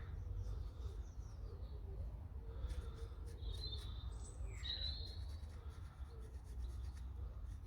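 Wild birds chirping and whistling, a cluster of short calls and one falling whistle in the middle, over a steady low rumble, with a few faint clicks.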